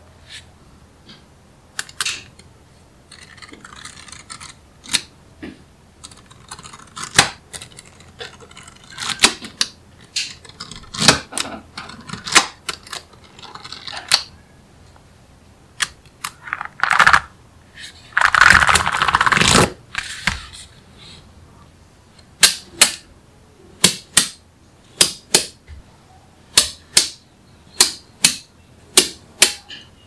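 Small magnetic balls (neodymium magnet spheres) snapping together with sharp, separate clicks as they are set in place. There is a louder noisy stretch of about two seconds around two-thirds of the way through, and the clicks come about twice a second near the end.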